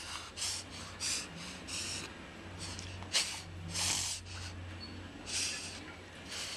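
English bulldog puppy reverse sneezing: rapid, repeated forced inhalations through the nose with a snorting sound, roughly two a second with short pauses, the loudest about three seconds in. This is the paroxysmal breathing typical of short-skulled breeds, not known to be harmful.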